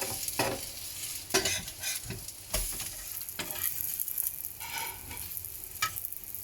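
Murtabak frying in ghee and oil on a flat griddle, sizzling steadily, with a spatula scraping and tapping against the griddle several times.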